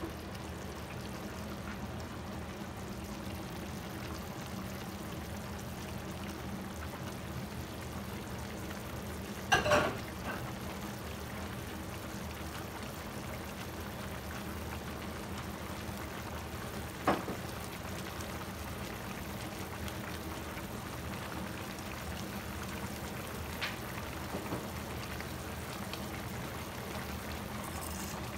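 Pork adobo simmering in a frying pan: a steady low bubbling sizzle. It is broken by a few sharp knocks, the loudest about ten seconds in and another about seven seconds later.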